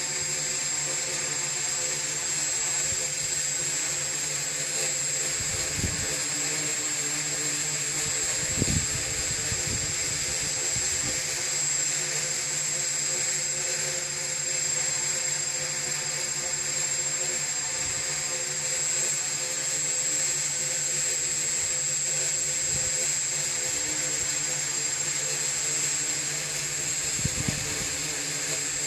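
Multirotor drone's electric motors and propellers humming steadily as it holds position in a hover, with several held tones. A few brief low rumbles come about six and nine seconds in and again near the end.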